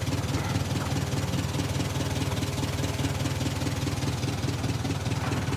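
Engine of a marine travel lift (boat hoist) running steadily at a low, even pace, with a rapid regular pulse.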